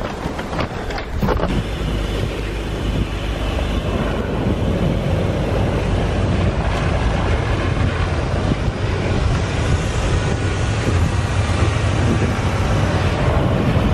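Chevrolet Silverado pickup's engine running steadily as the truck sits with its wheels sunk in deep snow, trying to get out, with wind buffeting the microphone.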